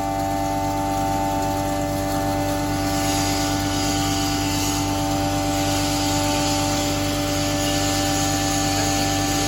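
Double-chamber maize grinding mill running steadily, a motor hum under a hissing rush that grows louder about three seconds in.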